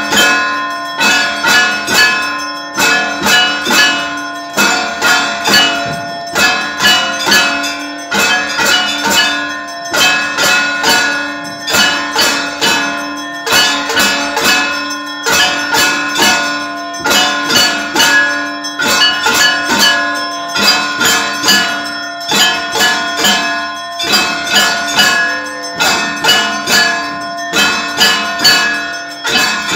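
Temple bells struck over and over in a steady rhythm, a few strikes a second, their metallic tones ringing on between strikes.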